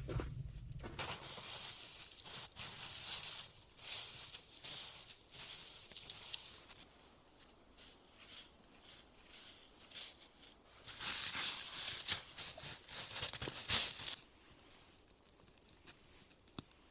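Bouts of rustling and scraping noise with scattered light clicks. The loudest stretch is about two-thirds of the way through, and it goes much quieter near the end.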